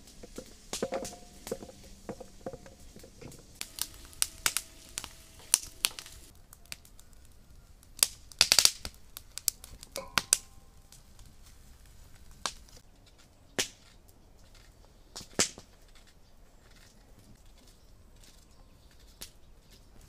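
A knife cutting cucumber and green pepper in the hand, with the pieces dropping into a stainless steel bowl: irregular crisp snaps and clicks, some leaving a short metallic ring from the bowl.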